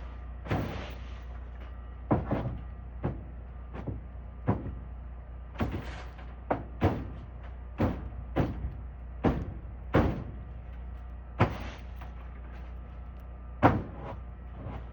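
A brush scraping and knocking frozen leaves and ice off a barn roof: about a dozen short, irregular strokes, the loudest near the end, over a steady low hum.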